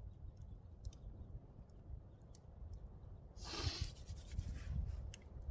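Faint scattered crackles from a wood fire over a low wind rumble on the microphone, with one brief rustle about three and a half seconds in.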